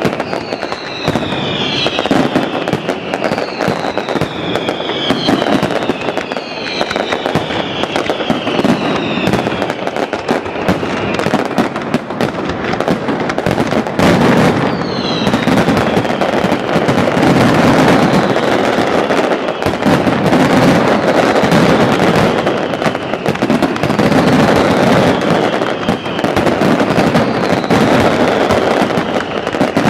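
Aerial fireworks display going off in a dense, continuous barrage of bangs and crackling. Shrill whistles falling in pitch sound repeatedly in roughly the first ten seconds and once more about halfway through.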